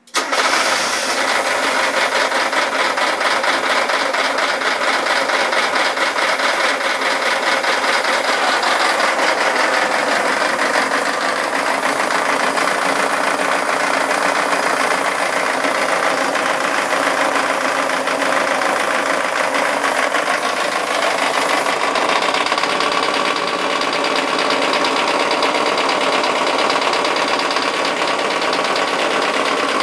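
Mazda Miata's four-cylinder engine coming on abruptly and running steadily with a hard, rapid knock throughout. The owner links the knocking to the engine having just run briefly at full throttle with the throttle held open, on its first start with fresh oil after sitting for eight months.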